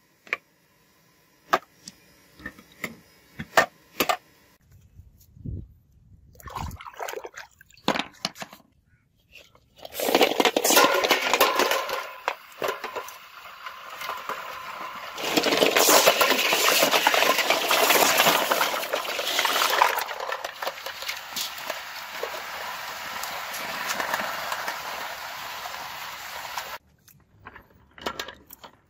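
Aluminium ingots knocked out of a steel muffin-tin mould, clinking and knocking one by one onto hard ground. About ten seconds in, a long stretch of water splashing and sloshing with metal clinks as the ingots go into a bowl of water and are stirred by hand; it stops abruptly near the end.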